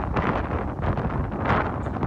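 Blizzard wind buffeting the microphone in gusts, a loud rushing noise that swells and eases.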